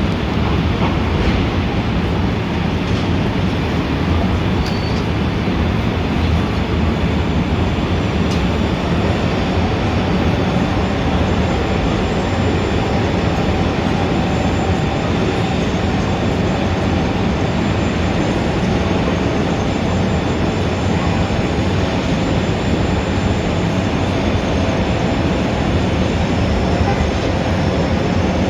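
Steady, dense rumble of city street traffic, heaviest in the low end, with no single vehicle standing out.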